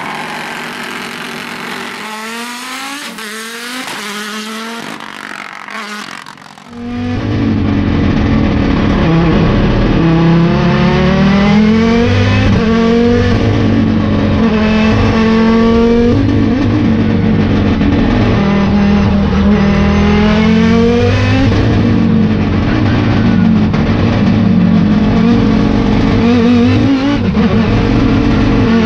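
Audi S2 R Quattro's turbocharged five-cylinder engine at full throttle, rising in pitch through quick upshifts as the car goes by. About seven seconds in it switches to loud in-car sound, the engine climbing in pitch and dropping back at each gear change every few seconds.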